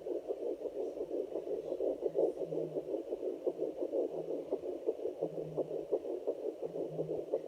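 Rapid whooshing fetal heartbeat picked up by a handheld fetal Doppler at about 10 weeks of pregnancy, heard through the device's speaker as an even, fast pulsing over a steady hiss.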